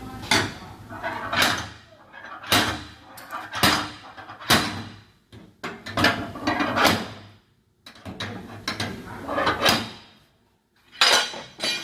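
Metal blows on a dented car fender during panel-beating repair, about ten irregular strikes roughly a second apart, each ringing briefly after the hit.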